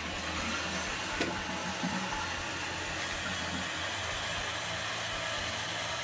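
Mansfield toilet flushing, then its tank refilling through the ballcock float valve: a steady rush and hiss of water, with a single click about a second in.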